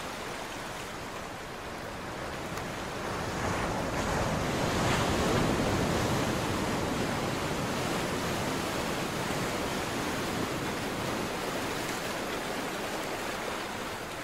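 Recorded ocean surf sound effect: a steady wash of wave noise that starts abruptly, swells to its loudest about five seconds in, then holds.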